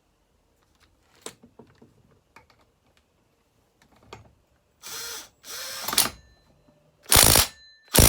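Husqvarna 266 chainsaw's recoil starter being pulled over by hand four times without the engine firing, with the rope rasping and the starter pawls ratcheting. The last two pulls are louder. Light handling clicks come before them. The pulls turn the freshly resealed engine over against compression.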